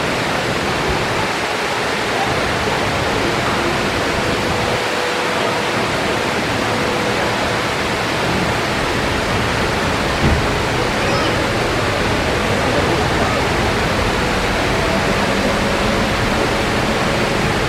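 Water falling steadily over the Mirage's lagoon waterfalls, an even rushing noise, with faint distant voices and a single knock about ten seconds in.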